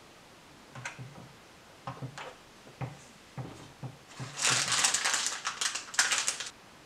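A few light clicks and knocks of plastic toy pieces being handled, then about two seconds of loud crinkling as a plastic parts bag is rummaged through near the end.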